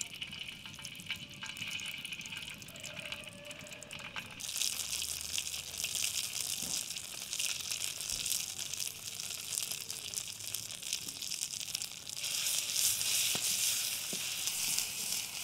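Hot oil sizzling as tomato paste fries in a wide pan, stepping up in loudness about four seconds in and again near the end. A few light knocks come from the wooden spoon stirring the paste near the end.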